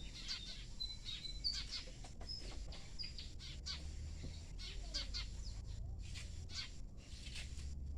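A flock of small birds chirping, with many short, sharp calls in quick succession and a few brief whistled notes, over a steady low rumble.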